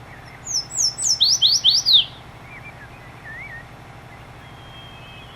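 Yellow warbler singing: one quick, bright phrase of about nine sharp down-slurred notes, the first few higher and the rest stepping lower, starting about half a second in and lasting about a second and a half. A second bird gives faint, softer wavering whistles.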